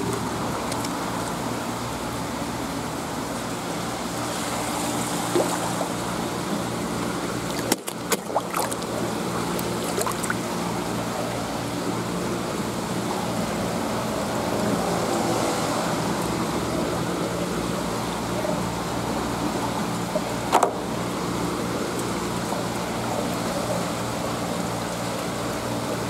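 Steady hum of a fish tank's circulation pump with seawater flowing and trickling. A few sharp clicks and knocks come about eight seconds in, and one louder one about twenty seconds in.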